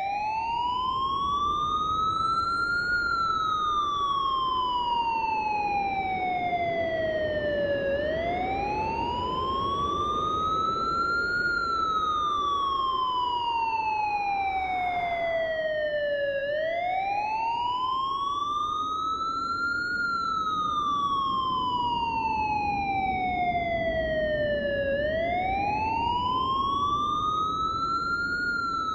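Siren wailing in a slow, steady cycle: each wail rises over about three seconds and falls back more slowly over about five, repeating about three and a half times. Beneath it runs an even low rushing noise.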